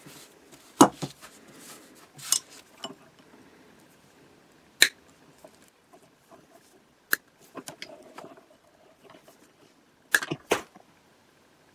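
Restored 1948 pliers snipping through insulated electrical wire: a series of sharp snaps several seconds apart, with two close together near the end, and light handling noise between them.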